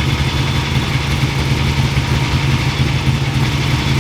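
An engine running steadily at idle, with a constant low pitch that neither rises nor falls.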